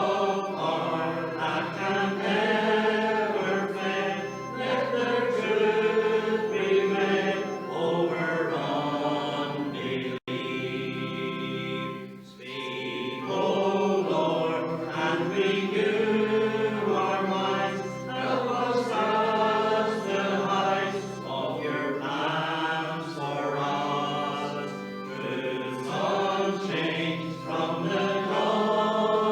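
Congregation singing a hymn, with a short break between lines about ten seconds in.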